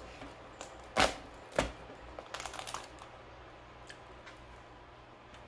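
A cooked whole crab's shell cracking and snapping as the top shell is pried off the body by hand: a sharp crack about a second in, another about half a second later, then a cluster of smaller cracks and clicks.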